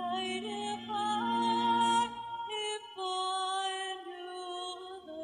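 Female lead vocal sung live through a microphone, holding long notes that slide gently between pitches. A low sustained accompaniment underneath stops about two seconds in, leaving the voice nearly alone until the band comes back right at the end.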